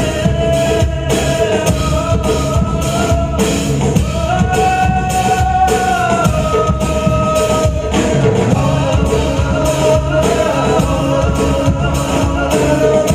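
Live band music played through a PA system, a singer holding long notes over drums and other instruments.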